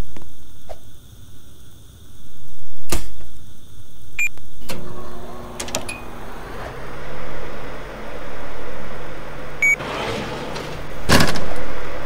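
An electronic appliance gives short high beeps and then starts running with a steady low hum. There is a sharp click before the first beep and a louder rushing burst near the end.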